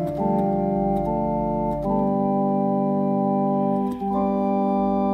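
Welson Globe-Trotter combo organ playing a slow run of sustained chords on a drawbar church-organ sound. The chord changes about four times, once a second for the first two seconds, then holds before changing again near the end.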